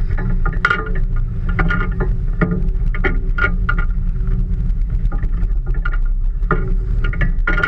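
Small fishing boat under way at sea, picked up by a boat-mounted camera: a loud, steady low rumble of motor, wind and water, with irregular clicks and knocks over it.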